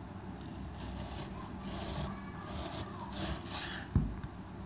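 A kitchen knife sawing through partly frozen beef on a wooden cutting board: a few short rasping strokes, then a sharp knock about four seconds in as the blade meets the board.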